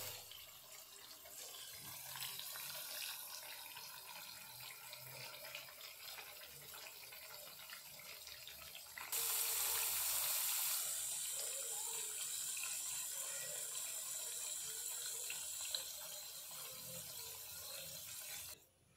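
Camote (sweet potato) sticks deep-frying in hot oil: a steady sizzle that grows louder for a couple of seconds about nine seconds in and cuts off just before the end.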